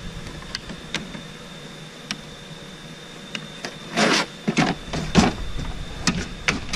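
Plastic tool cases clattering and clicking in a steel tool chest drawer, loudest about four seconds in, then the drawer sliding shut near the end with a few knocks.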